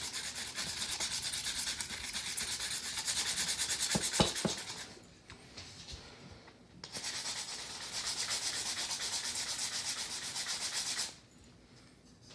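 Hand sanding of a cup, quick back-and-forth rubbing strokes over the surface to smooth imperfections on a decal. A couple of light knocks come about four seconds in, then the strokes pause for about two seconds, resume, and stop near the end.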